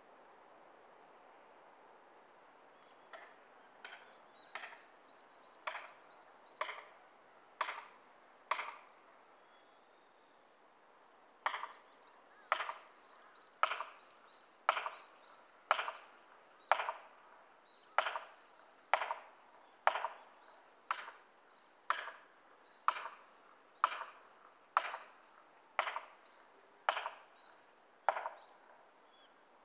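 Heavy blows on wood, about one a second, in a short run and then, after a brief pause, a longer and louder run: felling wedges being hammered into the cut of a tree whose hinge is holding.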